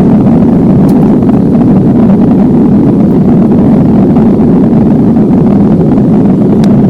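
Airbus A320 airliner's engines and airflow heard inside the cabin: a loud, steady low roar with no changes.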